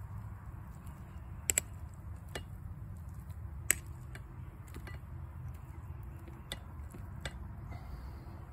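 About eight scattered sharp clicks and taps of a metal utensil against an aluminium frying pan as ground meat is stirred over a wood fire, the loudest a quick pair about a second and a half in, over a steady low rumble.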